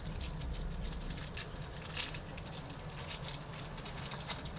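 Hockey trading cards being handled and flipped through: many small, irregular clicks and rustles of card stock, one a little louder about two seconds in.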